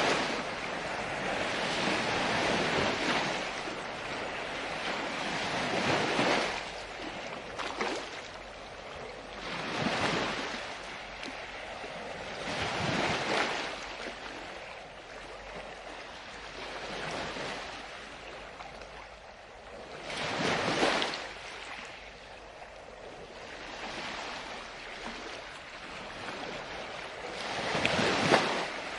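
Ocean surf on a beach: waves breaking and washing up the shore, a swell of rushing water every few seconds that rises and then falls away.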